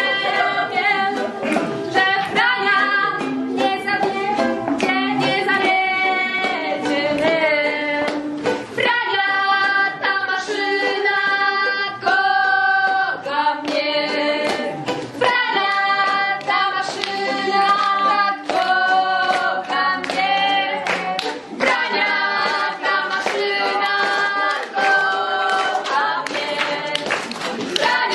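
Group singing of a lively dance song, with sharp rhythmic beats such as hand-claps running through it.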